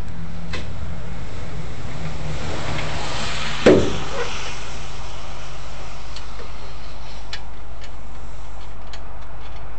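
A steady low mechanical hum at an even level, with one short thump and rustle a little under four seconds in.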